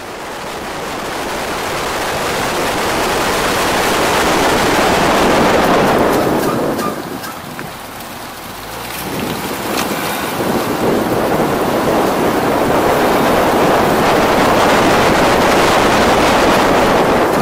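Road noise of a moving car heard right at a rear wheel: tyre roar with wind buffeting the microphone. It builds up, dips briefly about eight seconds in, then builds again.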